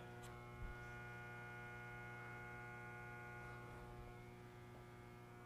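Faint, steady electrical hum with many even overtones, typical of mains-powered shop equipment, and a small click about a quarter second in.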